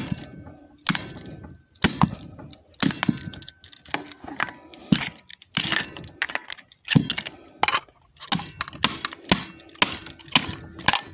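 Irregular clicks, knocks and clinks of a remote control's plastic case and batteries being handled by hand.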